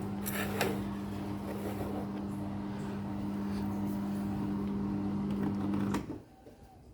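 Vestel washing machine running with a steady electric hum, which cuts off abruptly with a click about six seconds in.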